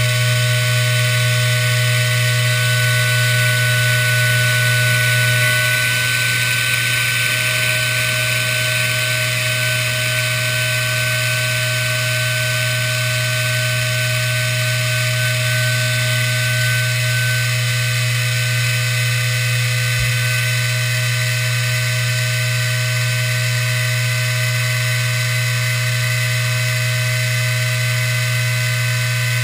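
CNC router spindle running steadily while a small end mill cuts through a flat sheet, a continuous machine whine with several held tones.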